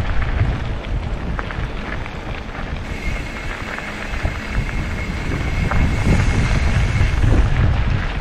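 Wind buffeting the microphone of a camera carried on a moving bicycle on a dirt track, a steady rumbling noise that rises and falls. A faint, thin, steady high tone joins in about three seconds in and fades out about seven seconds in.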